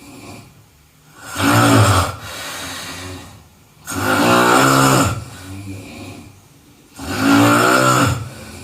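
A person snoring: three loud snores about three seconds apart, with quieter breaths between them.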